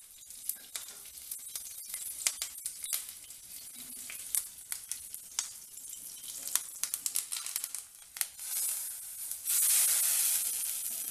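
Mustard seeds, cumin and curry leaves crackling in hot oil in a small pan as a tadka, with a scatter of sharp pops. Near the end comes a loud hissing sizzle as the hot tempering is poured into the simmering rasam.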